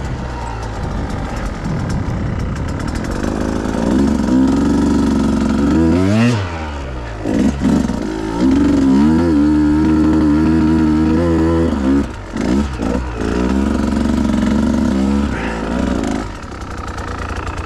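Two-stroke dirt bike engine revving as it is ridden, the pitch rising and falling with the throttle; a sharp swing up and down about six seconds in, then steadier running on the climb, with brief drops off the throttle near twelve seconds.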